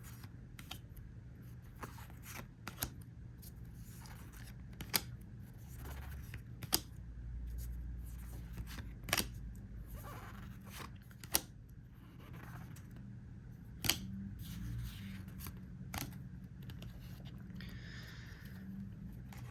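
Trading cards being handled and flipped through by hand, giving sharp, irregular clicks and snaps over a steady low hum.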